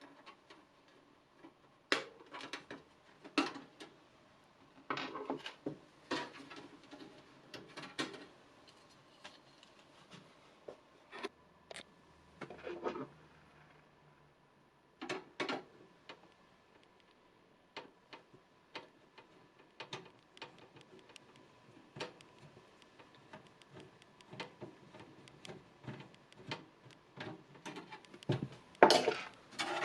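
Hands working on a desktop PC's graphics card and case: irregular clicks, taps and short scrapes of metal and plastic, with a run of small ticks and a louder cluster of clicks near the end.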